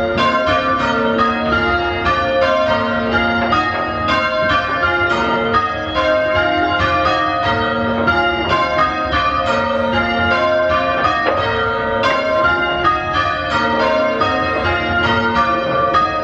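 A light but punchy-sounding ring of five church bells rung full circle in change ringing, the bells striking one after another in a steady, even rhythm with their hum overlapping.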